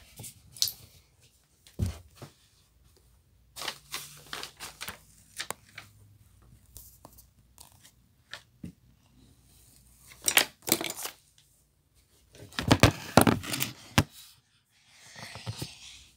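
Handling noise: irregular rustling and scraping with scattered small clicks and knocks as toy dolls and dollhouse pieces are moved about and the camera is handled close to them. The loudest scraping comes in two bursts, one about ten seconds in and a longer one a couple of seconds later.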